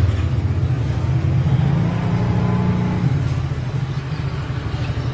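Steady low rumble of a motor vehicle engine running, its pitch rising slightly for a moment around the middle.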